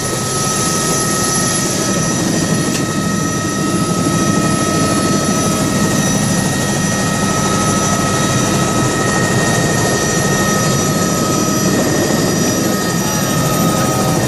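Helicopter in flight: a steady, even drone with constant high whining tones over it.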